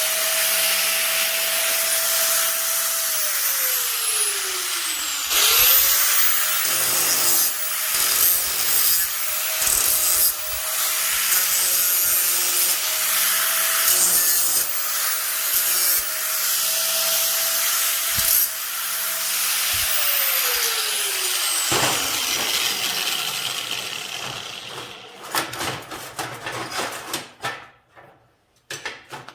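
Electric grinder grinding steel: the motor spins up with a rising whine and runs with a harsh rasp, winds down a few seconds in, then starts again and runs for about fifteen seconds before coasting down with a falling whine. Near the end, quieter scraping and a few sharp clicks.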